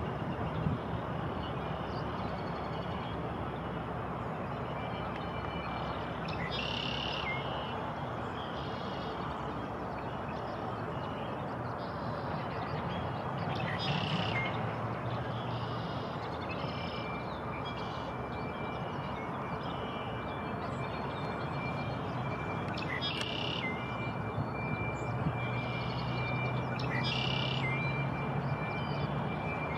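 Small birds giving short chirping calls again and again over a steady outdoor rush of traffic and wind noise. A thin, steady high tone joins a little past halfway.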